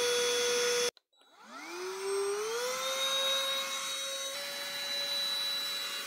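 BLACK+DECKER Dustbuster cordless handheld vacuum running steadily, then cutting out abruptly about a second in. After half a second of silence its motor spins up, the whine rising in pitch, and settles into a steady run.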